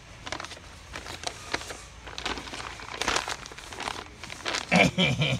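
Crinkling and rustling of a crinkly material being handled close by, as a run of irregular crackles. A voice starts near the end.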